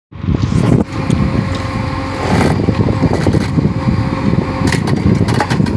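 Train running on the rails: a loud, steady rumble, with sharp clicks that come thick and fast near the end.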